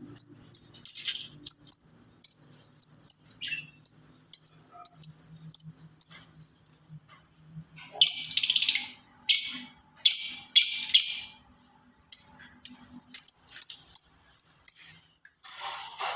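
Small songbird (the Indonesian 'labet') chirping, short high chirps repeated about twice a second. A run of louder, harsher calls comes about halfway through, and a thin steady high trill runs beneath some stretches.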